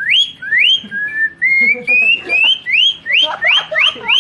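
A boy whistling by mouth in imitation of a songbird's call: a run of quick upward-sweeping whistles, about three a second, with a stretch of longer, flatter notes in the middle.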